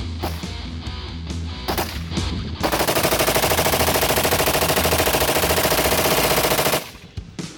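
Rapid automatic gunfire: one sustained burst of about four seconds, evenly pulsing, that cuts off sharply, after a few separate sharp shots. Background music with a steady bass runs under it.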